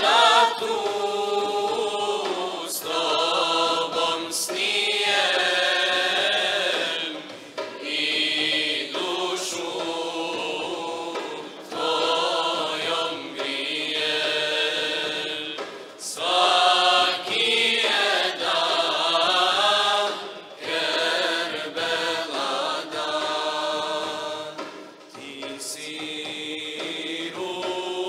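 Male voices singing an ilahija, a Bosnian Islamic devotional hymn, in long ornamented melodic phrases with short breaks between them.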